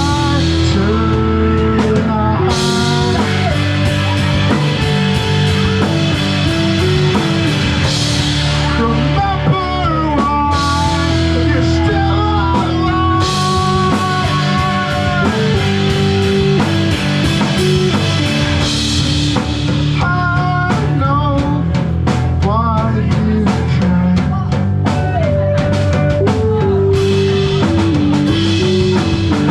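Live rock band playing a song: drum kit and guitar, with a sung vocal line over them.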